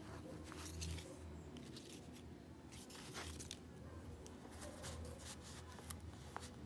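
Faint scratching and rustling of a pen moving over paper, with the paper shifting under the hand, over a low steady hum.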